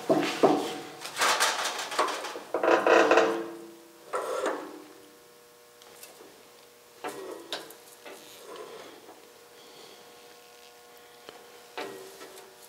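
Sheet steel handled in a manual box-and-pan sheet-metal brake: metal clanking and scraping against the brake's steel jaws and leaf, busiest in the first few seconds, then a few separate knocks as the piece is set and clamped for the next bend.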